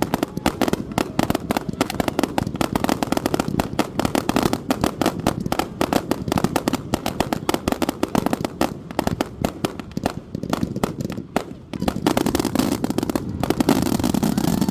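Massed Saturn missile fireworks going off: a dense, continuous rattle of rapid pops and cracks. The pops thin out briefly about ten seconds in, then a denser, steadier rush of noise swells up for the last few seconds.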